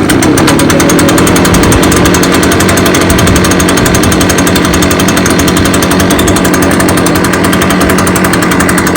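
Brand-new Echo PB580T backpack blower's two-stroke engine running steadily just after catching on its very first start, not revved.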